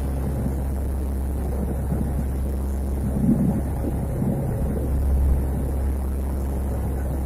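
Lockheed C-130 Hercules' four turboprop engines running with a steady low drone and a few small swells.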